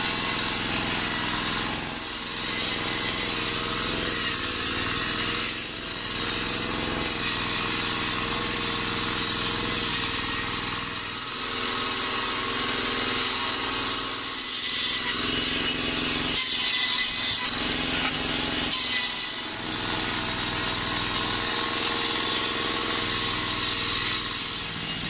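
Circular saw blade ripping lengthwise through a waru log, with the single-cylinder stationary diesel engine that drives it running steadily underneath. The sawing goes on continuously, easing briefly several times as the log is fed.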